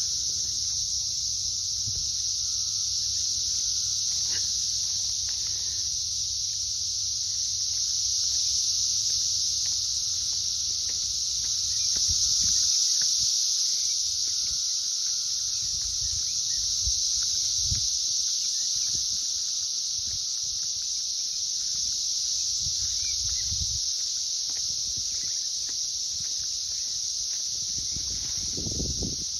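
Dense chorus of 17-year periodical cicadas (Brood XIII), a continuous high-pitched shrill that swells and eases slightly in waves. Occasional low thumps sound close by.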